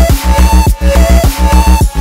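Electronic dance music with a heavy bass and a steady, pulsing beat.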